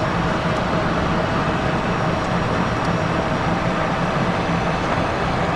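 Steady cabin noise of a Cessna Citation XLS business jet on final approach: its twin turbofan engines and the airflow over the airframe, with gear and flaps extended, heard from inside as an even rush with a low hum beneath it.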